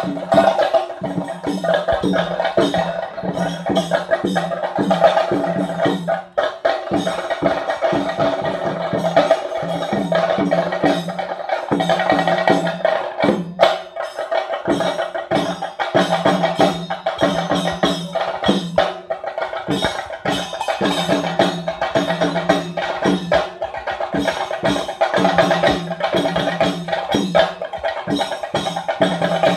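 Kerala temple percussion ensemble, chenda drums with cymbals, playing a fast, dense, unbroken rhythm to accompany a Thirayattam ritual dance, with steady sustained tones held over the beat.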